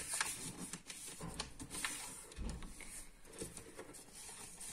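A sheet of paper being handled and folded, with faint scattered rustles and crisp little clicks as fingers slide over it and crease it. A soft low thump comes about halfway through.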